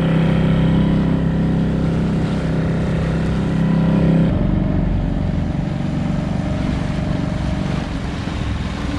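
Small boat's outboard motor running steadily; about four seconds in its note changes abruptly and it runs on lower and a little quieter.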